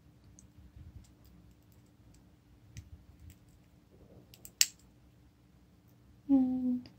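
Small clicks and taps of fingers and metal parts as a new 377 button-cell battery is seated in a quartz watch movement, with one sharp click about four and a half seconds in. A short voiced hum comes near the end.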